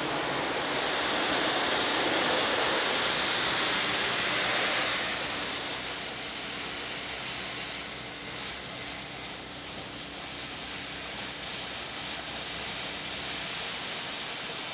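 Automatic car wash spraying water over the car, heard from inside the cabin: a steady rushing wash, louder for the first few seconds and then softer, with a faint steady hum underneath.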